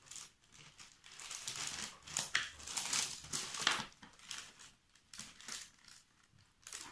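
Sheet of baking paper rustling and crinkling as it is handled, with a few short sharp taps.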